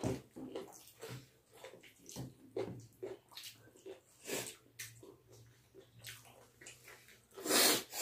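Close-up eating sounds: wet chewing, lip smacks and finger licking as two people eat chicken curry and rice by hand from steel plates. The sounds come in short, irregular bursts, with one louder, longer burst about 7.5 s in.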